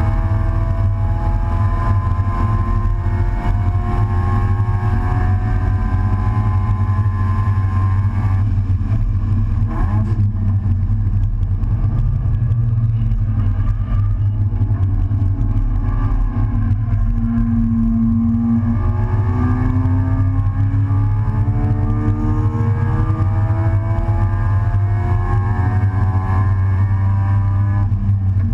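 Race car engine under hard acceleration, heard from inside the open cockpit. The revs climb steadily, break off about a third of the way in, then pull up again from lower revs past the halfway point. Throughout there is a heavy rumble of wind and road noise.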